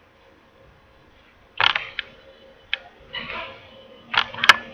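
Sharp clicks and taps of a digital pen on an interactive whiteboard as an image is selected and dragged larger. There are about five clicks from about a second and a half in, the last two close together near the end, with a faint rustle between them.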